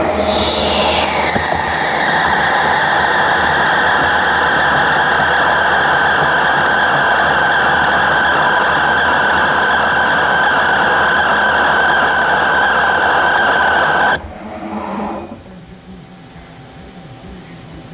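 Lathe tool squealing as it cuts 17-4 PH stainless steel on a large part in a manual Mazak lathe. The high squeal falls in pitch over the first two seconds, holds steady, then stops abruptly about fourteen seconds in, leaving a much quieter machine hum.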